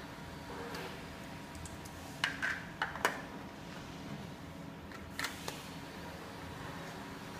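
Plastic inkjet cartridges being handled and fitted to a plotter carriage: a cluster of sharp clicks and taps about two to three seconds in, and two more a little past five seconds, over a faint steady hum.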